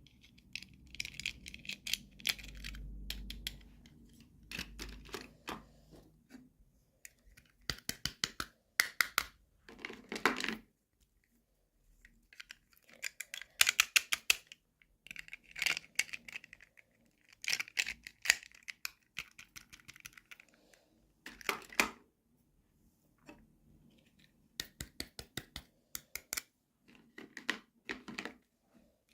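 Toy packaging being handled and opened: plastic crinkling and rustling, with clusters of small, sharp clicks and taps.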